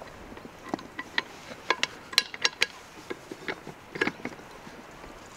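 Cookware being handled: a run of about a dozen irregular sharp clicks and light knocks, thickest around two seconds in and again at about four seconds.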